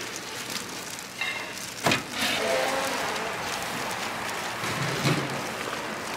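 Plastic-gloved hand squishing thick batter through julienned vegetables in a metal bowl, mixing fritter batter with a steady wet churning. A sharp knock about two seconds in.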